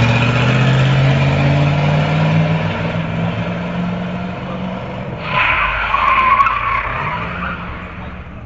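A motor vehicle's engine running and slowly rising in pitch as it speeds up, then a loud screech from about five seconds in that fades away.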